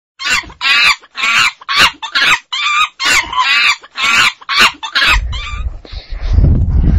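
A chicken clucking in a quick run of short calls, about two a second, which stops about five seconds in. A low rumble takes over near the end.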